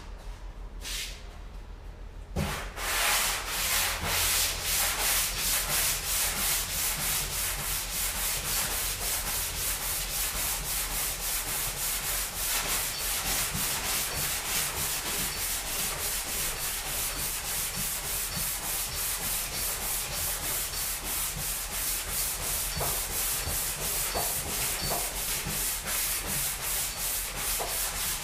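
Hand sanding with a sanding block and sandpaper on a Land Rover bonnet, in steady back-and-forth strokes that start about two seconds in. The panel is being sanded down to get it level.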